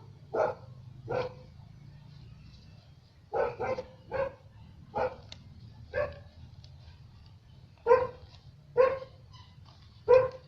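A dog barking: about ten short, single barks with uneven gaps between them.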